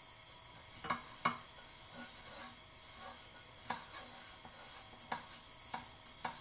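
Silicone pastry brush spreading butter over a hot crêpe pan on a gas burner: light brushing over a steady faint hiss, broken by about six sharp clicks and knocks as the brush and the pan shift on the burner.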